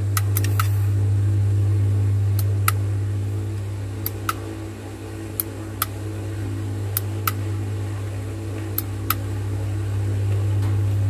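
Transformer-type soldering gun humming steadily with its trigger held while wire ends and a connector are tinned with solder. A few short sharp ticks sound over the hum.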